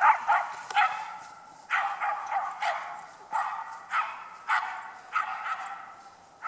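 A small dog barking repeatedly while running, about two short barks a second, the barks growing fainter as it runs off.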